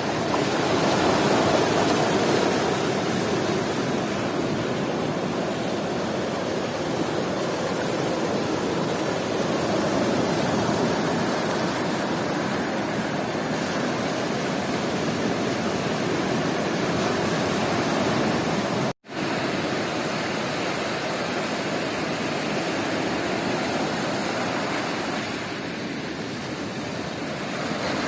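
Sea surf washing onto a beach: a steady rush of breaking waves that swells and eases slowly. It cuts out completely for an instant about two-thirds of the way through, then resumes.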